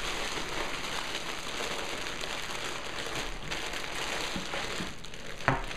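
Steady crackly rustling of plastic packaging being handled, with one sharp knock about five and a half seconds in.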